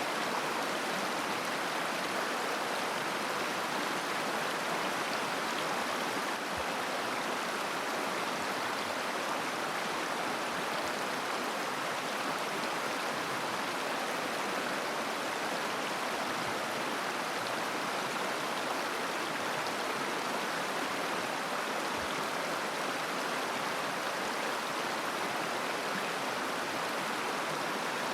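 Shallow mountain river flowing steadily over stones, a continuous babbling rush of water.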